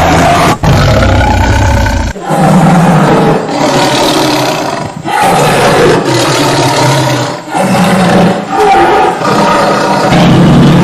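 Tiger roaring: a run of loud, rough roars with short breaks every two to three seconds.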